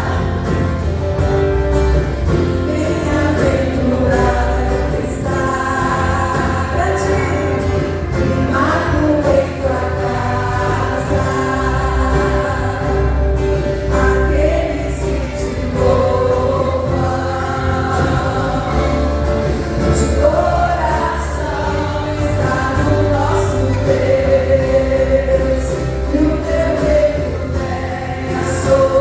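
Portuguese-language gospel song: a choir sings over a band with a steady, pulsing bass.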